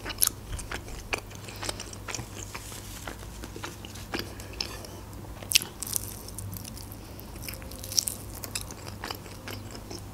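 A person biting and chewing a chicken wing in tomato sauce: wet mouth sounds with scattered crisp clicks and a few louder snaps as meat is pulled from the bone.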